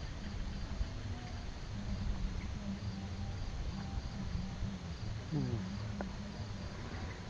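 Field crickets chirping, a faint high pulse repeating about twice a second, over a low steady rumble.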